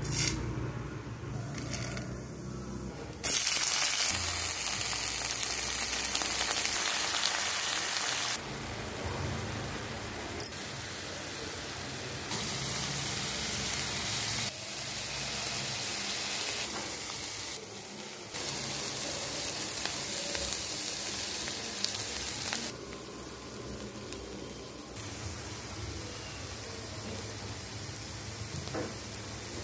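Oil sizzling in a pan as tempering seeds and lentils, then ponnaganti (sessile joyweed) leaves with garlic cloves, fry. The sizzle jumps up and down in loudness abruptly several times.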